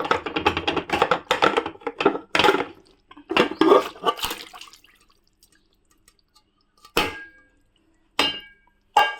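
Chunks of chilled tripe dropped into a metal pressure cooker of water, splashing and clattering for several seconds, followed by three separate metallic clinks, the later ones ringing briefly.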